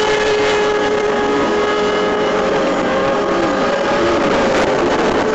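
Motorboat engine running steadily under way, with a steady engine tone over the rush of water and wind.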